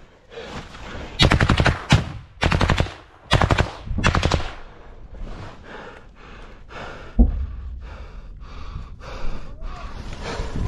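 Close-range automatic weapon fire: four loud bursts of rapid shots in the first few seconds, then fainter single shots at about two a second, with one sharp, very loud bang about seven seconds in.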